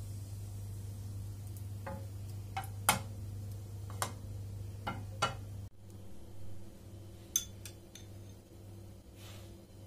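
A handful of sharp clicks and ticks as a frying pan of melted butter and chili-flake sauce is handled over a gas stove's metal grate, over a steady low hum that drops away about six seconds in.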